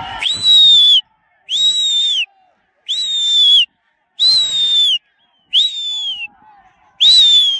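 Loud, piercing whistle calls repeated six times at an even pace, about one every second and a half. Each rises briefly and then glides down in pitch.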